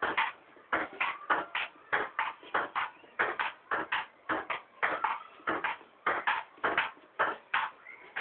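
Table tennis rally: quick, sharp clicks of the ball bouncing on the table and being struck by the paddles, about three to four a second.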